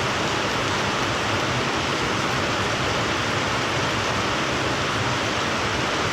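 Steady, unchanging rushing hiss with a faint low hum underneath.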